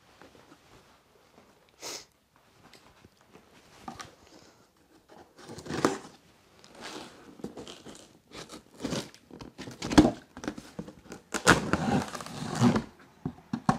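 Packing tape being slit and pulled off a corrugated cardboard box, with the cardboard flaps scraping and crackling as they are worked open. The handling comes in irregular bursts that grow busier and louder in the second half, with one sharp knock partway through.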